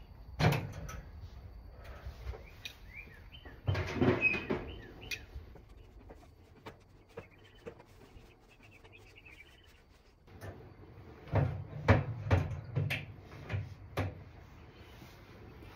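Metal clanks and knocks from a cabinet smoker's door and racks and a gas grill being handled: a knock near the start, a cluster about four seconds in and a run of clanks between about eleven and fourteen seconds. Birds chirp faintly in between.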